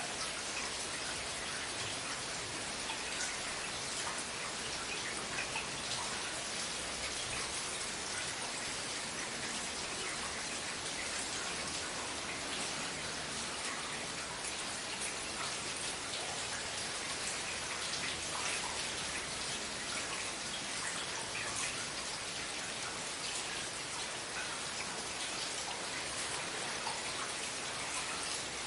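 Steady rain falling and pattering on hard surfaces, with many small drops ticking, over a faint low rumble.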